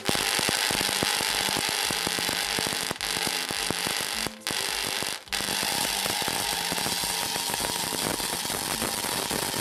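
High-voltage electrical arc hissing and crackling as it strikes the glass of a frosted incandescent light bulb, with brief breaks where the discharge drops out about three, four and a half, and five seconds in.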